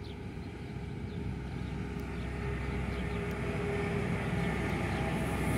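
Electric freight locomotive, BLS Cargo class 486 (a Bombardier TRAXX), hauling an empty rolling-highway train on approach: a rumble of the train on the track that grows steadily louder as it nears.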